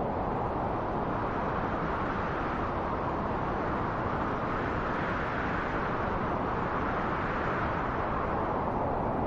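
Steady rushing wind with no whistle or howl, swelling in the middle of the stretch and easing off again near the end.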